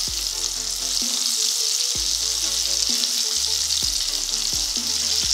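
Vareniki deep-frying in hot oil in a kazan: a steady, dense sizzle of bubbling oil.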